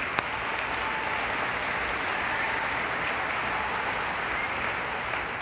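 A large audience applauding steadily, dying down near the end.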